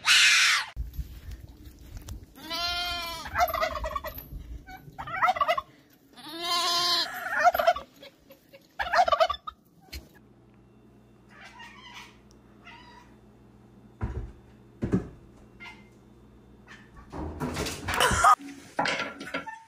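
White cockatoo screaming: two long, loud calls a few seconds apart, with shorter squawks between. Later comes a faint steady low hum with a couple of knocks, and a loud burst of mixed noise near the end.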